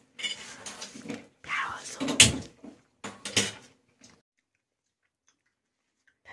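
Whispered voice close to the microphone in short airy bursts, with one sharp knock about two seconds in. The sound then drops to dead silence for the last two seconds.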